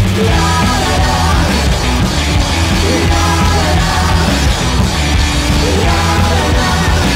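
Rock music: a singing voice over steady bass and drums.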